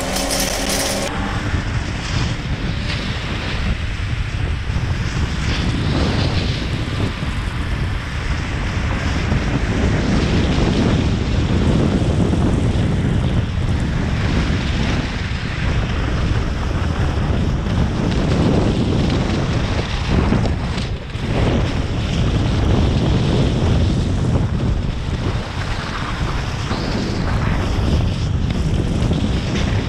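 Wind rushing over the microphone of a pole-mounted GoPro as a skier runs downhill, mixed with the hiss of skis on packed snow.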